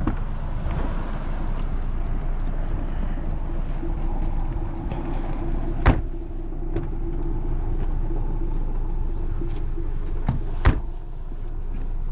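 Motor vehicle engine running steadily with a low rumble, with two sharp knocks, one about six seconds in and another near eleven seconds.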